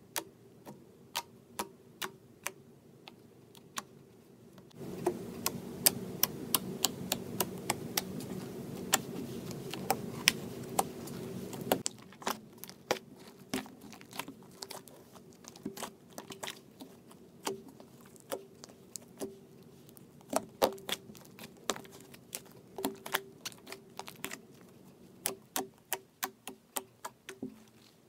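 Fluffy slime made with shaving foam and foaming soap being poked and squeezed by hand, giving sharp little clicks and pops of trapped air, about one a second at first and then in quick irregular runs. From about five to twelve seconds in, a louder steady noise sits under the clicks.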